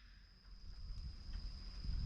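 Faint low rumble, like wind on the microphone, building from about half a second in, with a thin steady high-pitched tone underneath; no bird calls.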